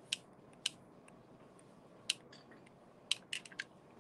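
Sharp clicks and taps from handling a hot glue gun and plastic bottle caps while a cap is glued onto cardboard, with a quick run of several clicks about three seconds in.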